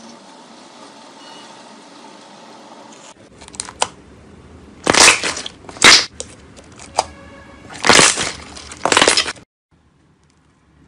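Soft slime being pinched and pulled by fingers, with small clicks and four loud squelching pops a second or so apart, as air pockets in the slime burst. The sound cuts off suddenly near the end.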